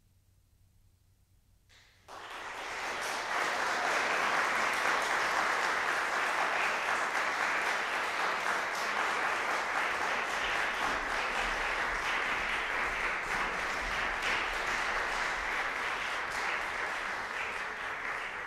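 Audience applauding: after a short quiet, the clapping breaks out about two seconds in and keeps going steadily.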